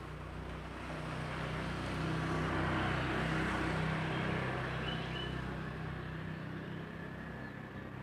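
A motor vehicle's engine passing close by: a low, steady engine hum that comes in suddenly, grows louder to a peak about three seconds in, then slowly fades away.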